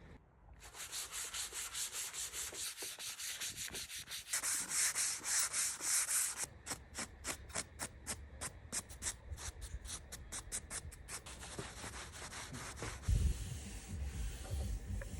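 Wood being sanded by hand, the abrasive scraping in quick back-and-forth strokes of about four or five a second. A few low knocks near the end.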